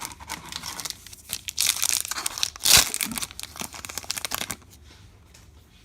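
Trading card pack's foil wrapper being torn open and crinkled in the hands, a dense crackling that peaks about three seconds in and stops after four and a half seconds.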